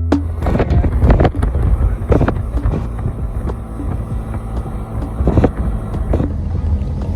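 Steady low rumble of a moving vehicle, with wind on the microphone and a few sharp knocks and bumps.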